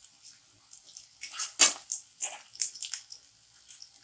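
Spatula stirring and scraping chopped onion and green chillies frying in mustard oil in a kadhai: a run of irregular scraping strokes, the loudest about one and a half seconds in.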